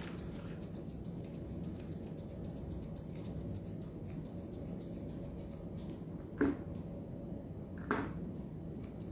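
Toothed thinning shears snipping through a Maltipoo's facial hair in a quick, steady run of small metallic clicks, with two brief louder sounds near the end.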